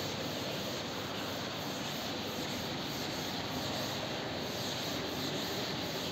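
Steady rushing background noise, with a chalkboard duster rubbing chalk off the board.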